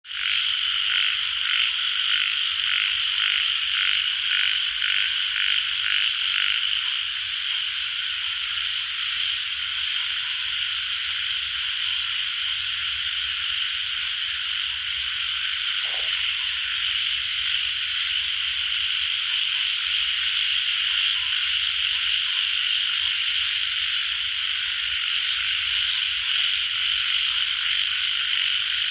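Dense chorus of tiger frogs (yellow frogs) calling without pause. Over the first several seconds one frog's croaks stand out in a regular run of about two a second.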